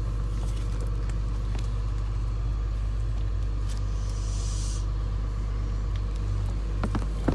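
Steady low engine rumble of an idling vehicle, with a brief high hiss about four seconds in and a few faint clicks.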